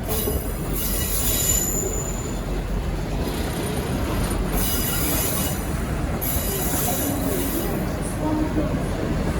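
Arriving V/Line N-class locomotive-hauled passenger train's wheels squealing in several high-pitched bursts, each a second or two long, over a steady low rumble as the train rolls slowly into the platform.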